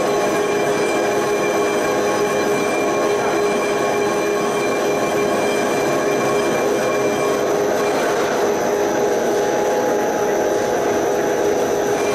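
Vertical lathe cutting a spinning steel flange plate: steady machining noise of the tool on the metal with several high tones held unchanged throughout.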